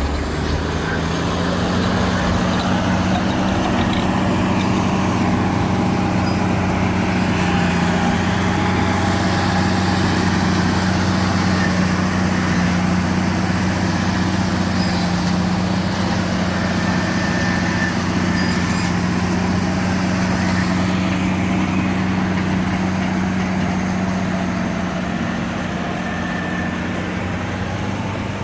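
HBXG SD9N track bulldozer's diesel engine running with a steady low note, easing off slightly near the end.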